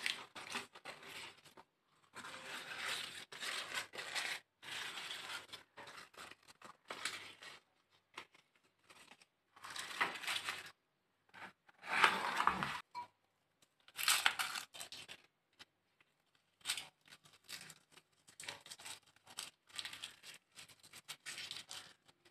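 Crumpled sheets of notebook paper crinkling and rustling as they are unwrapped by hand, in short bursts with brief pauses. About twelve seconds in there is one louder bump.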